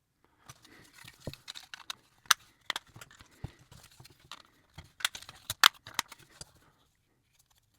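Small plastic model-kit parts clicking and rattling as they are handled and pressed together, a run of irregular sharp clicks over light rustling, with the loudest clicks about two and five seconds in. It stops about a second before the end.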